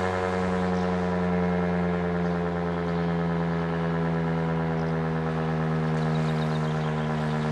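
Old Elektror L1 electromechanical motor siren, the high-tone unit of a WWII-era L1/F2 set, sounding the fire-alarm signal. It holds a loud, steady, many-toned wail whose pitch sags slowly.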